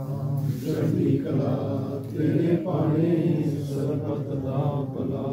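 Sikh devotional chant: voices held in a steady, sustained chant on a nearly even pitch.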